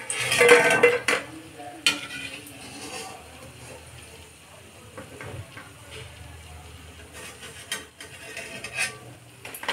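Mathri frying in hot oil on a low flame, with a steady sizzle, while a metal spoon scrapes and clicks against the pan, lifting the pieces out. The scraping and sizzling are loudest in the first second, then a few sharp clicks.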